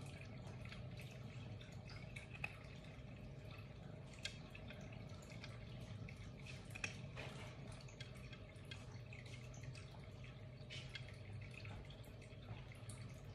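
Quiet room tone: a steady low hum with a few faint ticks, the clearest about two and a half, four and seven seconds in.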